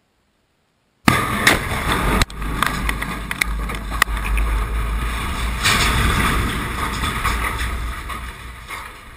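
Demolition explosive charges detonating about a second in: a sudden, very loud blast, then a continuous deep rumble with scattered sharp cracks as the structure bursts into fire and debris, slowly dying away over the last few seconds.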